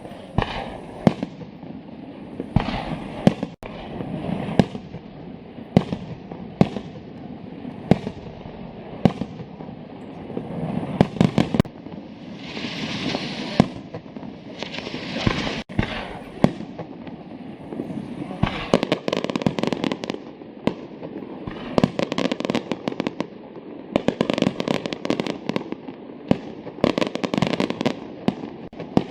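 Professional fireworks display: a steady run of loud bangs from shells bursting, one every second or so, with crackling and hissing between them and dense rapid crackle in places.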